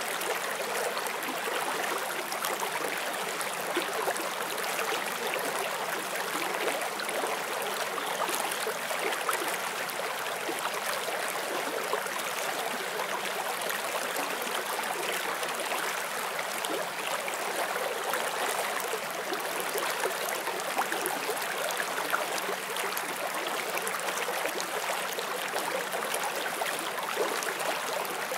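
Forest stream flowing over stones, a steady splashing and gurgling rush of water.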